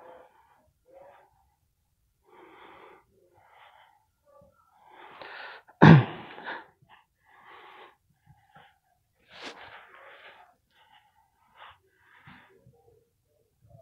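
A person's breathing, in a string of short breaths, with one much louder sudden burst about six seconds in.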